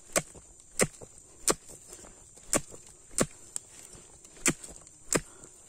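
A blade chopping at the stalk of a kelubi (swamp sour palm) fruit bunch to cut it free: seven sharp strikes, roughly one every half-second to a second.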